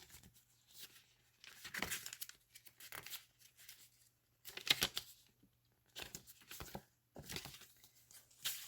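Paper rustling and crinkling in several short bursts as the pages and tucked-in papers of a handmade paper junk journal are handled and turned.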